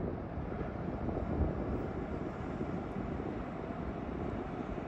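Wind buffeting the microphone outdoors: a steady, rough low rumble with no distinct events.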